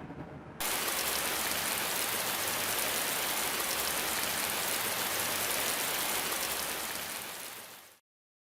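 Steady, even hiss of heavy rain that starts abruptly about half a second in and cuts off dead near the end.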